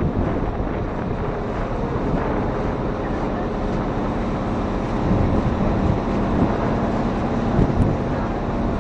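Motorized outrigger boat (bangka) under way: a steady engine drone under wind buffeting the microphone and water rushing past the hull and outrigger.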